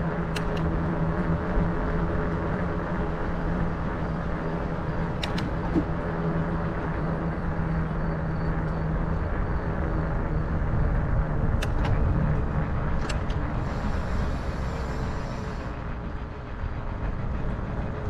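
Trek Farley 5 fat bike's 5-inch tyres rolling on a paved trail at about 10 mph: steady rolling noise with a low hum that fades about halfway through as the bike slows. A few sharp clicks come through, and a brief hiss near the end.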